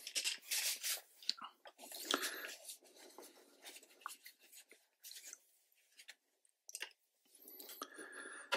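Soft, irregular scrubbing and rustling as a hand and brush work at a metal watercolour paint tin, in uneven bursts that are loudest in the first two seconds and again near the end.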